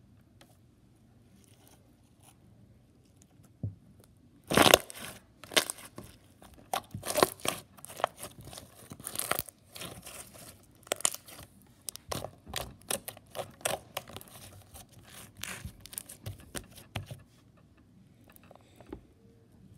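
Crunchy slime being squeezed and kneaded by hand, giving a quick run of irregular sharp crackles and pops. The crackling starts about four seconds in, is loudest just after that, and stops a few seconds before the end.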